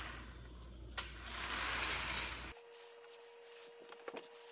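Dry coated soybeans rustling and rattling as they are pushed across a mesh drying net, with a sharp click about a second in, over the low hum of an electric fan. About two and a half seconds in the hum cuts off abruptly, leaving light scattered clicks over a faint steady tone.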